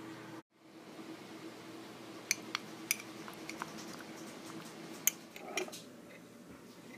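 Metal spoon stirring wet paper pulp in a glass jar, clinking sharply against the glass several times.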